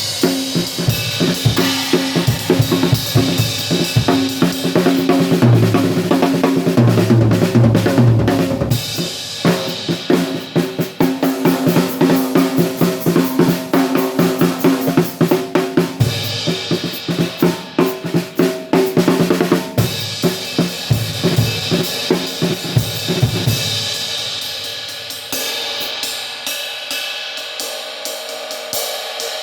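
Drum kit being played, with an 18-inch hand-hammered B20 crash-ride cymbal struck among the snare, bass drum and hi-hat. The player calls the cymbal kind of dark. About six seconds before the end the drums drop out and only cymbal strokes continue.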